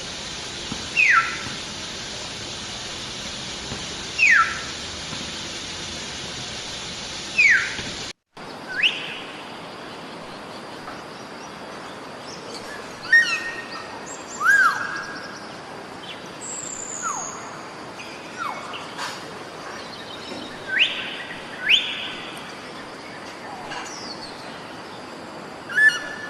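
Common hill myna calling: loud, clear whistles that drop steeply in pitch, repeated three times about three seconds apart over a steady high hiss. After a brief dropout, a looser run of varied whistles and short chirps follows.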